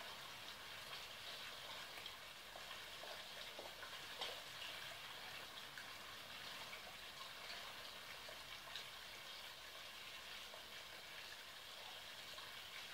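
Faint, steady crackling hiss of outdoor background noise, with a few small ticks.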